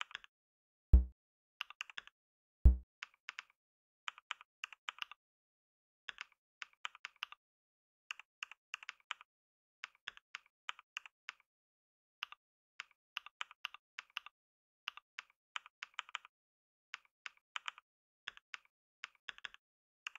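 Typing on a computer keyboard: sharp keystroke clicks in quick clusters, word by word, with short pauses between them. Two heavy low thumps stand out, about a second in and again under two seconds later.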